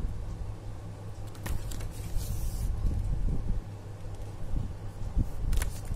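A folded paper user guide being opened out and handled: a brief rustle of paper a couple of seconds in and a few light clicks, over a steady low background hum.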